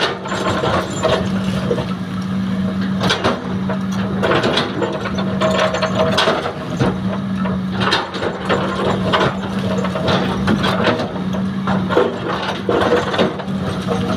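Hitachi excavator at work loading soil: its diesel engine holds a steady low hum, with frequent irregular clanks and rattles from the working machinery and dirt.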